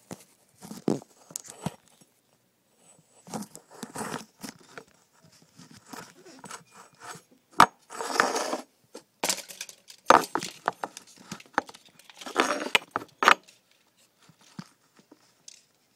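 Handling noise: the phone is moved about and touched close to its microphone, giving irregular clicks, knocks, scrapes and short rustles, with a few sharp knocks standing out.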